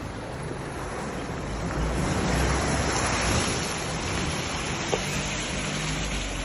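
Water rushing and splashing around a Mahindra Thar as it wades through and climbs out of a water pit, the splashing loudest a couple of seconds in, with the engine running low underneath.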